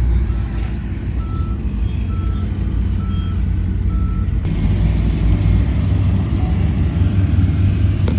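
Heavy diesel construction machine running, its reversing alarm beeping about once a second. The beeping stops about halfway through, and the engine noise carries on a little louder.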